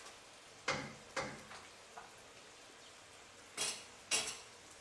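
Wooden spoon knocking against a cooking pot: two pairs of short, sharp knocks, each pair about half a second apart, with about two and a half seconds between the pairs.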